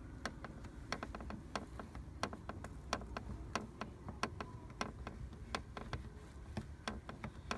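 Door trim of a 2014 Mini Cooper F56 creaking and clicking as it is pressed by hand: a run of small sharp clicks, about three a second. It is the same creak the owner hears from the door on bumpy roads.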